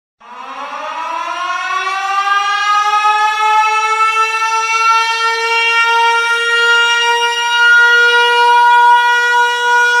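Ice hockey goal horn, a siren-type horn that winds up from a low pitch over the first few seconds and then holds one loud, steady tone.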